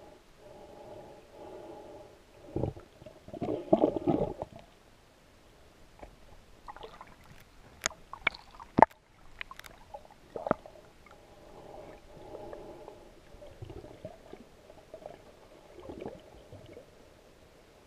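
Muffled underwater sound picked up by a submerged camera: low gurgling and dull bumps, with a cluster of sharp clicks around the middle.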